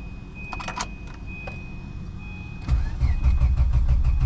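A steady high-pitched warning beep and a jingle of keys in the ignition. Then, about two-thirds of the way in, the Volvo 850's five-cylinder engine starts cranking on the starter motor: a loud, rhythmic churning that does not catch.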